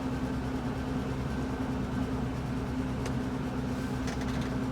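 Steady low electrical or machine hum, with a few faint clicks near the end.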